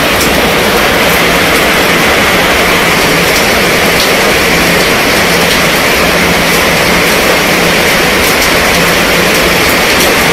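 Heavy rain falling steadily on a tent canopy and on wet pavement: a dense, even hiss with scattered individual drop taps.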